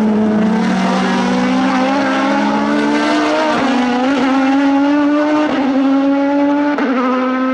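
Aston Martin V12 Vantage GT3's 6.0-litre V12 running through an open exhaust, accelerating hard. Its pitch climbs and drops sharply about three times as it shifts up through the gears.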